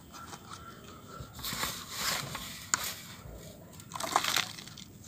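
Hands pressing and packing loose soil around a sapling's roots inside a cut-down plastic container: gritty crunching and rustling of soil against plastic, in two louder spells, about a second and a half in and again near four seconds, with a few small clicks between.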